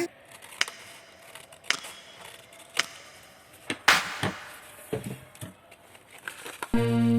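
Plastic blind-bag packaging being handled and opened: scattered crinkles, snips and clicks, the sharpest about four seconds in. Guitar music comes back in near the end.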